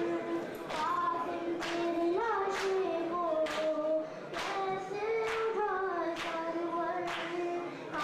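A noha (mourning lament) sung in a sustained, wavering melody, with matam: hands slapping bare chests in unison on an even beat a little more than once a second.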